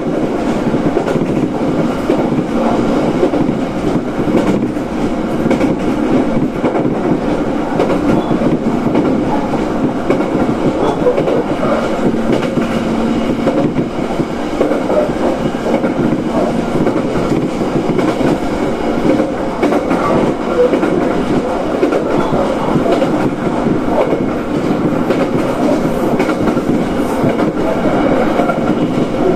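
Local one-man railcar running at speed, heard from inside the carriage: a steady rumble of steel wheels on the rails with a clickety-clack over the rail joints.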